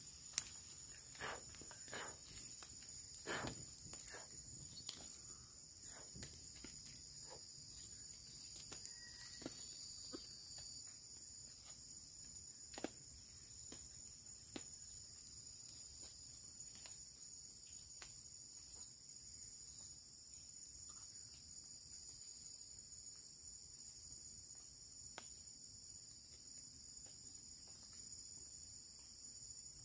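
A steady, high-pitched chorus of crickets, with a wood campfire crackling in scattered snaps, most of them in the first few seconds.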